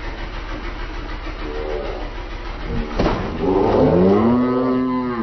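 A boat motor idling with a steady low hum. About three seconds in comes a sharp snap, followed by a person's long drawn-out exclamation that rises in pitch and then holds.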